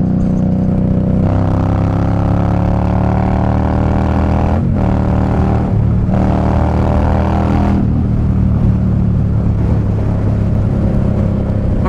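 V-twin motorcycle engine accelerating under the rider: the revs climb, break briefly at two gear shifts around five and six seconds in, climb again, then drop back to a steady cruise from about eight seconds in.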